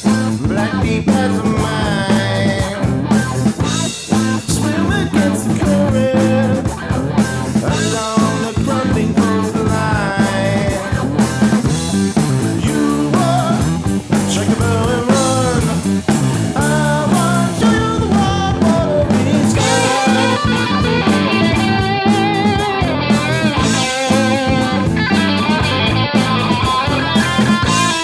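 Rock music led by guitars, loud and continuous; about twenty seconds in, more high-pitched guitar lines join in.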